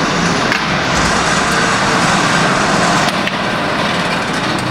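Steady rushing noise of an indoor shooting range's ventilation, with a few faint clicks; no shots are fired.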